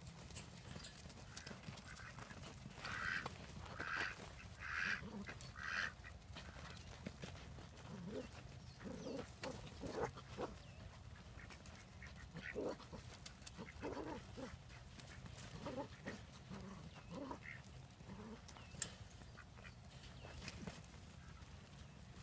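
Ducks quacking: four loud quacks about a second apart, then scattered softer quacks, over a steady low hum.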